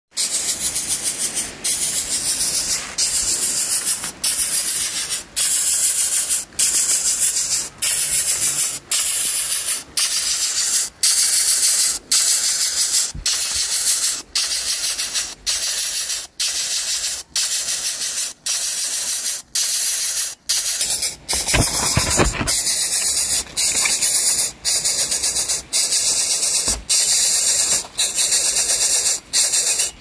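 Shrill, high-pitched insect buzzing that pulses in a steady rhythm, about once a second. A brief low rustle comes about 21 seconds in.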